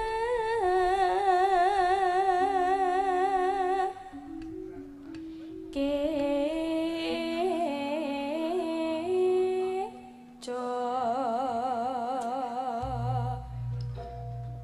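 Javanese sinden singing solo with strong vibrato in three long held phrases separated by short breaks, over an instrument holding steady notes underneath. Near the end the voice stops and a low pulsing beat comes in.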